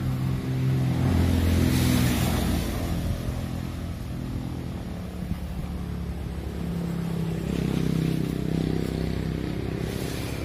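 A motor vehicle engine running, its pitch shifting up and down and growing louder about two seconds in and again around eight seconds.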